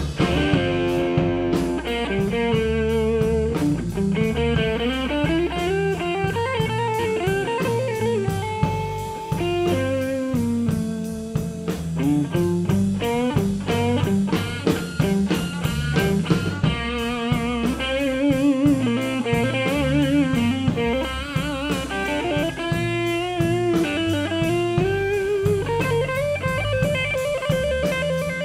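Electric blues band playing a slow blues, led by an electric guitar solo. The guitar plays single notes with string bends and wavering vibrato over a drum kit keeping a steady beat.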